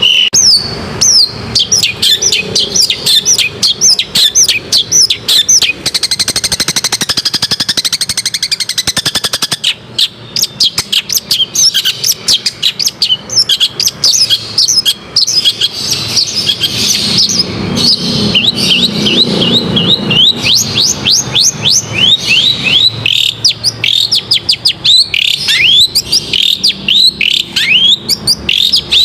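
Long-tailed shrike singing a loud, fast, varied song of quick chirps and downward-sweeping notes. About six seconds in, the song changes for a few seconds to a harsh, rapid rattle.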